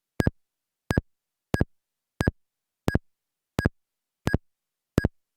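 A steady series of short electronic clicks over a radio receiver's audio output, about three every two seconds, with dead silence between them; eight clicks in all.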